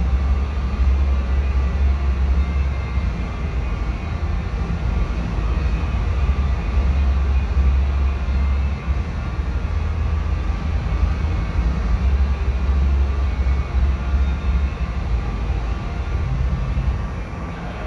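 Paint spray booth's ventilation fans running: a steady low rumble.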